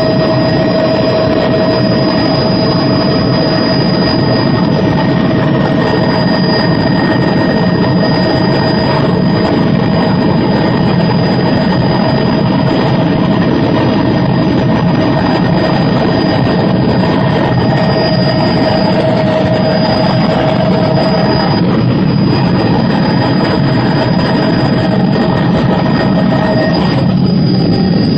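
Tour helicopter's turbine and rotor noise heard from inside the cabin: a loud, steady drone with a thin whine over it that drops out near the end.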